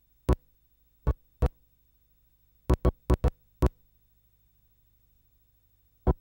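Nine sharp percussion hits in an uneven rhythm: single strikes, a quick pair, then a tight cluster of four around three seconds in, and one last hit near the end.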